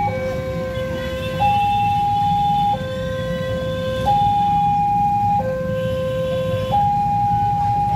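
Railway level-crossing warning alarm sounding while the barriers are down for an approaching train. It is an electronic two-tone signal that switches back and forth between a low and a higher note, each held for about a second and a third, over a low rumble of waiting motorcycle traffic.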